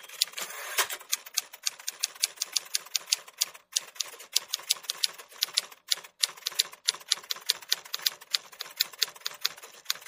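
Typing sound effect: rapid, irregular key clicks that follow the text appearing letter by letter, with two short pauses, about a third of the way through and just past halfway.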